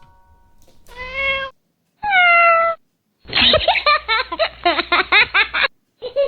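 Cat meowing: a short meow, then a longer one falling in pitch, followed by about two and a half seconds of rapid, wavering high calls.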